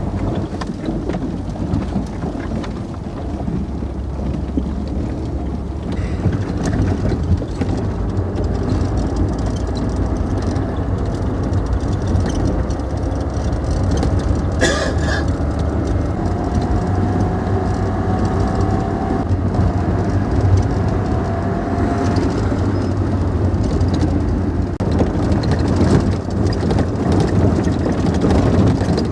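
Inside an old Russian-made car's cabin: the engine running and the car jolting steadily over a bumpy, unpaved dirt track, with one sharp knock about halfway through.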